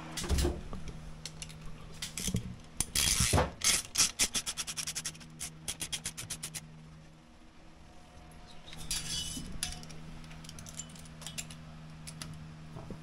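Socket ratchet clicking as a stainless T-bolt hose clamp is tightened onto a silicone coolant hose: a quick, even run of clicks about three to six seconds in and a shorter run near nine seconds, with a few knocks of the tool, over a steady low hum.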